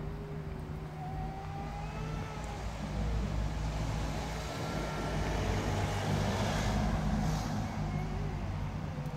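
A motor vehicle passing on a road: a low engine rumble swells about a third of the way in, and tyre hiss peaks a little past the middle before easing off. A few faint, thin wavering tones sound over it.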